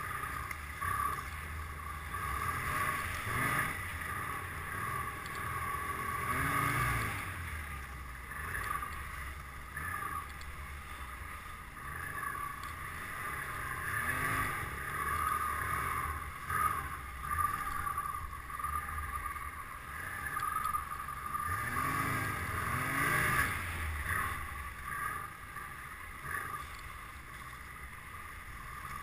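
Snowmobile engine running as the sled is ridden through snow, its pitch rising and falling several times with the throttle.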